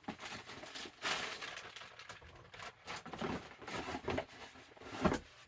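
Handling of a boxed action-figure package: irregular rustles, scrapes and light taps of cardboard and plastic, with a sharper knock about five seconds in.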